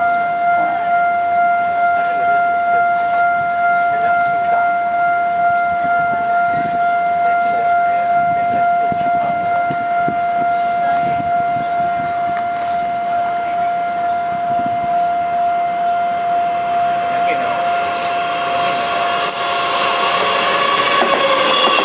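Railway level-crossing warning bell sounding with a steady, evenly pulsing electronic tone. Over the last few seconds the approaching southbound Tze-Chiang express, hauled by an E300-class electric locomotive, grows louder before the bell stops near the end.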